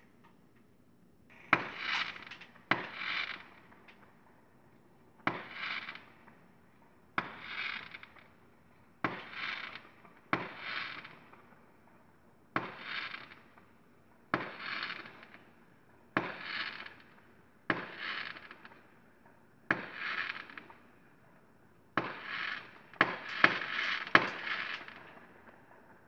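Aerial fireworks bursting about fifteen times, one every second or two. Each burst is a sharp bang with a short trailing hiss, and the bursts come faster near the end.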